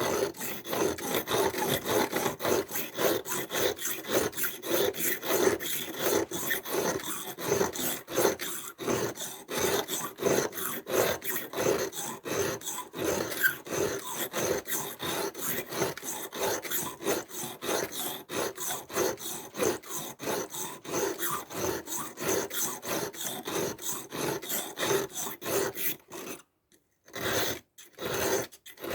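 Steel blade of a Victorinox Swiss Army knife rubbed back and forth on a dry sharpening stone, several rasping strokes a second, while the edge is ground down and reshaped. The strokes pause briefly near the end, then a few more follow.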